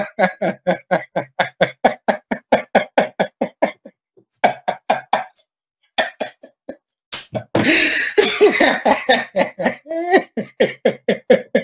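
An old man laughing hard in a long run of rapid 'ha' pulses, about six a second. It breaks off briefly around five and a half seconds in, and a raspy, breathy burst comes about eight seconds in before the laughing carries on.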